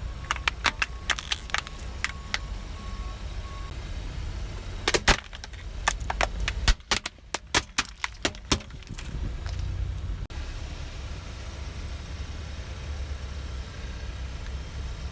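Car tyre rolling over and crushing brittle objects: a quick run of sharp cracks and snaps, then a denser cluster of cracks some five seconds in, over the low steady running of the car.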